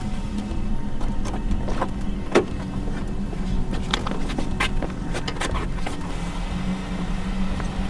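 A car's interior being searched by hand: a series of scattered clicks and knocks, the sharpest about two and a half seconds in, over a steady low hum.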